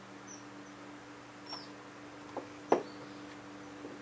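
Hand crimping tool and crimp connector being handled on extension-cord wire: a few small clicks and one sharp click a little after halfway, over a steady low hum. A few faint, short high chirps come and go.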